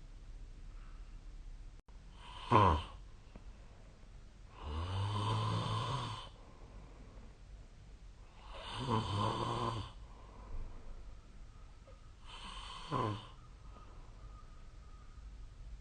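A person snoring in sleep: two long snores about four seconds apart, with a short, sharp snore before them and another after. The first short one is the loudest.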